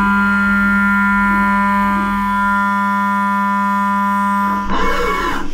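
Background music: one long held chord. Near the end it gives way to a short, busier passage that cuts off.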